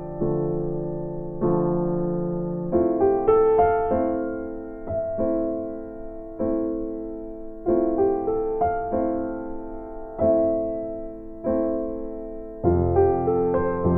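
Background music: slow, gentle piano or electric piano, with single notes and chords struck about once a second and left to ring and fade.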